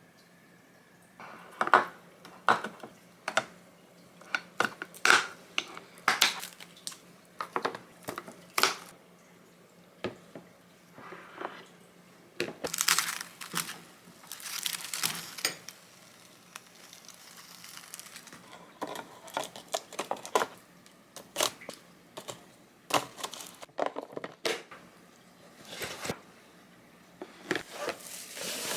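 Kitchen handling sounds: a string of sharp clicks and knocks from utensils and containers, with stretches of rustling like plastic packaging being crinkled.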